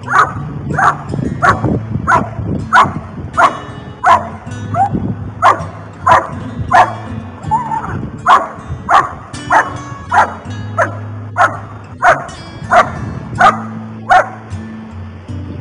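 A dog barking repeatedly in an even rhythm of about one and a half barks a second, the sustained guarding barking of Schutzhund protection work. A short whine replaces one bark about halfway through, and background music plays underneath.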